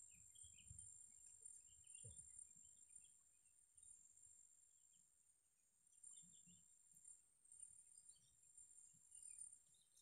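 Near silence: a faint, steady, high-pitched insect drone, with scattered faint bird chirps and a few soft rustles.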